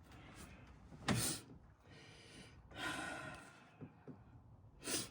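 Hand-work noises from repairing an engine: a sharp clack about a second in, a longer rushing, breath-like sound around three seconds, a few small ticks, and another brief clack near the end.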